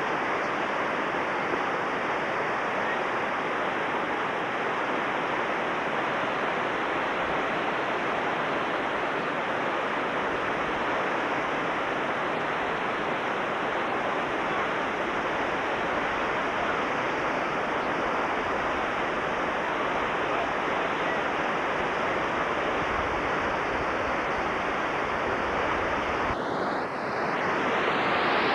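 Steady roar of whitewater rapids, water pouring over and around boulders. Near the end it dips briefly and comes back a little louder and brighter.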